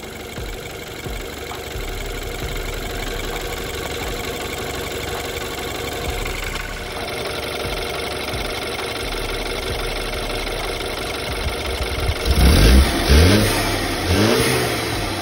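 BMW N20 2.0-litre turbocharged four-cylinder engine running with a steady, noisy idle, revved quickly a few times near the end. The noise is typical of this engine, which gets louder with use.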